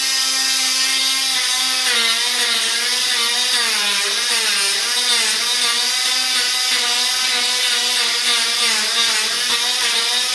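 Oscillating multi-tool running with a steady whine as it scrapes old vinyl flooring stuck to the floor. From about two seconds in, the pitch dips and wavers as the blade is worked against the floor.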